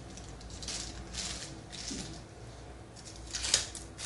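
Rustling and handling of paper and packaging from a phone's box: a handful of short crinkly rustles, the loudest about three and a half seconds in.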